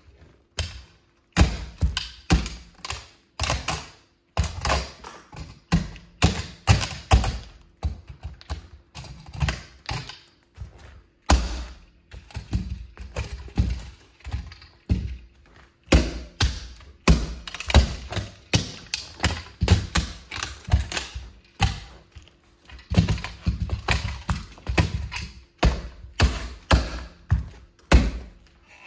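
Plastic toy Plymouth Prowler car being stomped and crushed under platform high heels: repeated sharp plastic cracks, crunches and heel thuds in quick clusters, with short pauses between.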